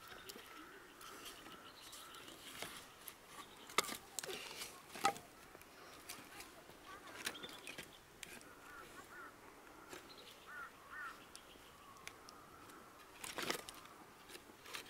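Split firewood clacking now and then as pieces are stacked by hand into a pile, with a few sharp knocks about four and five seconds in and again near the end. Birds chirp faintly in the background.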